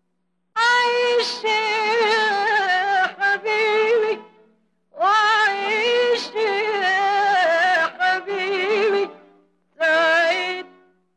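A woman singing an Arabic song in three phrases, her voice wavering with vibrato. Short pauses separate the phrases, and the last phrase is brief.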